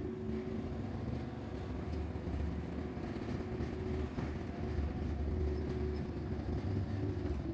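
Ship-lock gate machinery running: a steady low mechanical rumble with a constant hum.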